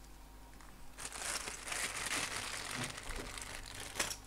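Crinkling of the paper-and-foil wrapper of a new scalpel blade as it is torn open and handled, ending in one sharp click a little after four seconds in.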